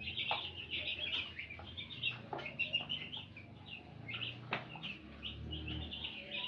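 A brood of four-day-old broiler chicks peeping continuously, many short high chirps overlapping, with a few soft knocks in between.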